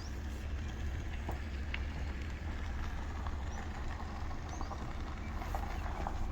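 A vehicle's engine running: a steady low rumble, with a few faint short high chirps over it.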